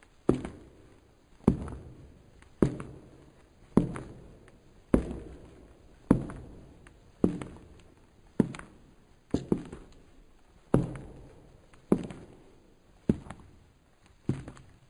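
Slow, even footsteps, one sharp step a little more than once a second, each followed by an echoing tail. Twice a quick double step breaks the rhythm.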